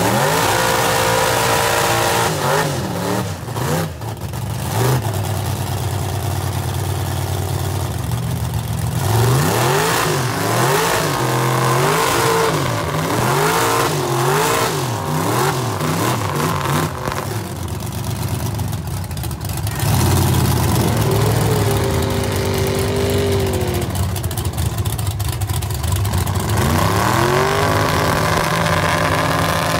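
Mega truck engines revving hard under load in a tug of war. The pitch surges up and down about once a second for several seconds, holds high and steady for a while, then climbs again near the end.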